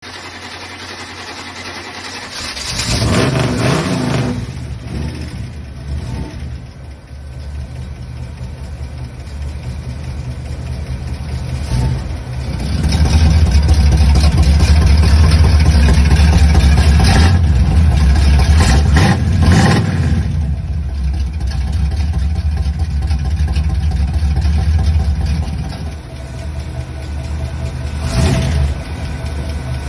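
1964 Chevrolet Impala SS's 327 small-block V8 running at idle, revved briefly a few seconds in, again near the middle and once near the end, and louder through the middle stretch.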